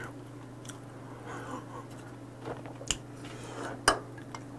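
Chopsticks clicking against a soup bowl and a small dish: two sharp clicks about a second apart, the second the louder, then a faint tick.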